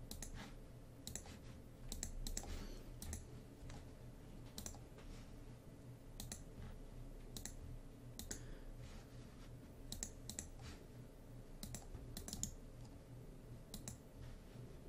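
Computer mouse buttons clicking at irregular intervals, some clicks in quick pairs, over a faint low hum.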